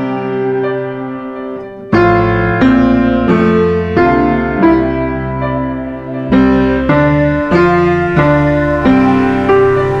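Slow instrumental piano music: a melody over low bass notes, a note or chord struck every half second to a second. In the first two seconds held notes fade, then a fuller chord comes in with the bass.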